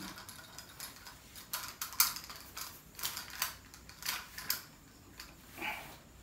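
Plastic buckles and mount of a chest phone-holder harness clicking and rattling as it is strapped on and adjusted: irregular sharp clicks, the loudest about two seconds in.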